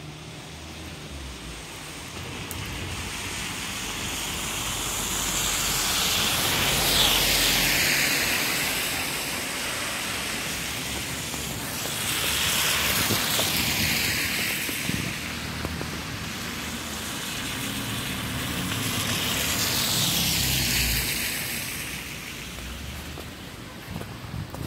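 Three cars passing one after another on a slushy, snow-covered road, each heard as a swell of tyre hiss on the wet slush that rises and fades, about seven, thirteen and twenty seconds in.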